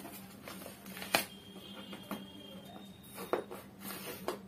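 Cardboard shipping box being opened by hand: scattered crackles and tearing of the cardboard, the sharpest about a second in.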